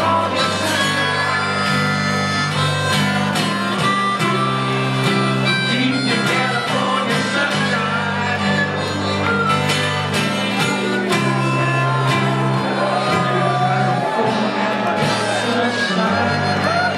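Live band music with a steady, pulsing bass line and harmonica playing over it.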